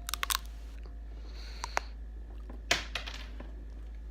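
Quiet room with a steady low hum and a few brief, faint clicks and rustles scattered through it.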